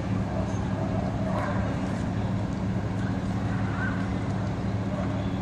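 Steady low hum of an engine running at idle.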